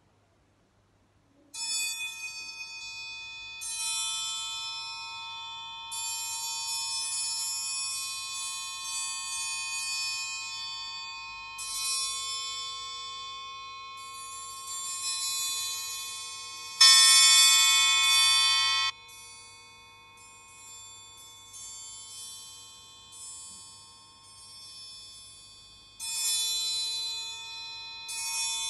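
Orchestral triangle struck with a beater, playing a solo study: strokes and short rhythmic figures that ring on, starting about a second and a half in. It is loudest for about two seconds past the middle and swells again near the end.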